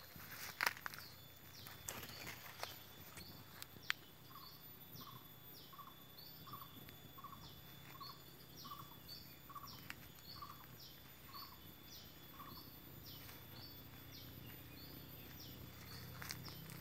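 Footsteps and rustling through undergrowth, with a bird calling a regular run of short repeated notes, a little more than one a second, from about four seconds in until about twelve seconds in.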